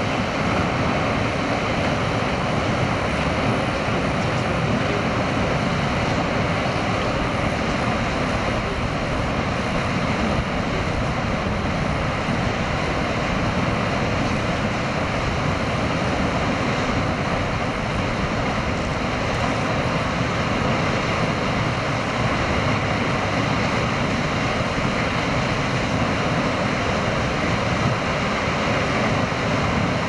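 Steady rushing noise of Tower Falls, the waterfall on Tower Creek, falling water heard as an even roar.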